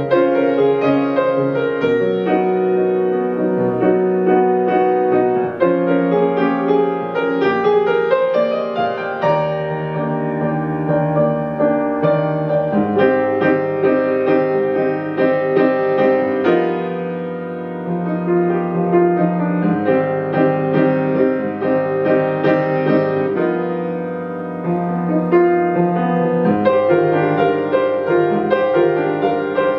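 Grand piano playing a solo jazz piece, with sustained low chords under a moving melody line.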